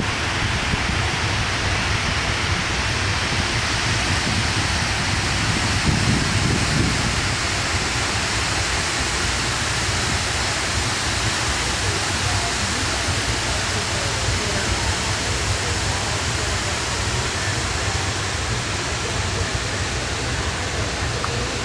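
Steady rushing noise with a deep rumble underneath, heard aboard a moving boat: engine, water and wind on the microphone.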